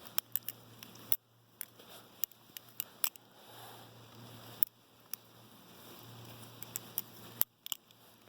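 Sharp metallic clicks and clacks at irregular intervals from a Benchmade 63 balisong being handled, its titanium handles and latch knocking as it is opened and moved about.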